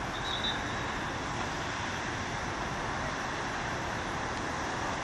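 Steady, even noise of road traffic mixed with wind, with a brief faint high tone about half a second in.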